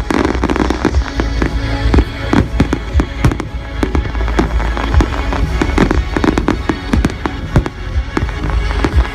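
Fireworks display: shells bursting in rapid, irregular succession, several loud reports a second, over accompanying music.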